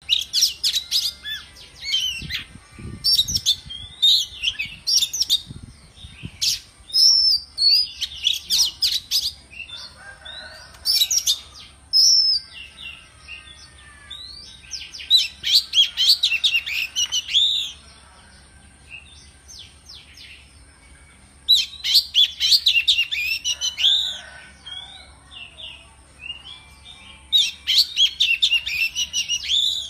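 Oriental magpie-robin (kacer) singing: bursts of loud, varied whistled phrases with sharp clicking notes, with short pauses between bursts and one longer pause past the middle.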